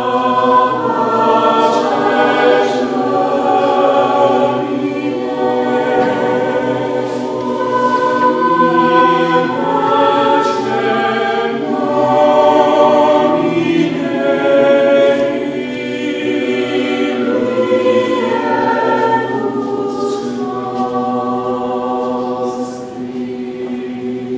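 A small group of voices singing a cappella in slow, long-held chords, with no instruments, in a medieval chant-like style. The singing softens near the end.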